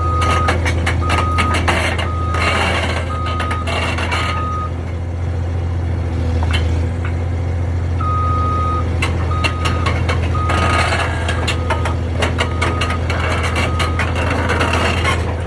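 A construction machine's reversing alarm beeping about once a second over its steady low engine drone, with clattering and rattling. The beeping stops for about three seconds midway, then starts again.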